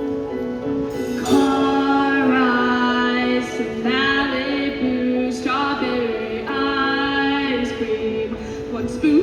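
High school show choir singing held notes in several phrases over instrumental accompaniment, with female voices most prominent.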